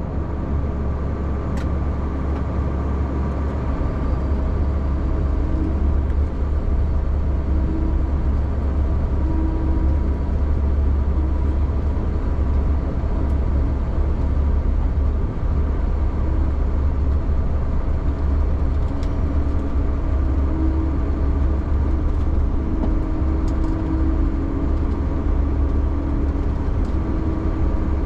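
Snowcat engine running steadily, heard from inside the cab: a constant deep drone with a few steady humming tones above it.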